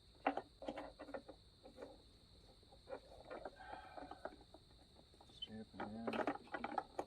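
Hard plastic clicks and knocks of a headlight bulb assembly being worked into the grooves of a headlight housing, the sharpest click about a third of a second in. A steady high insect trill, likely crickets, runs behind, and a brief vocal sound comes near the end.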